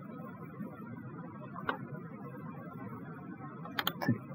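A few computer mouse clicks over a low steady hiss: a single click about two seconds in, then a quick pair and one more click near the end.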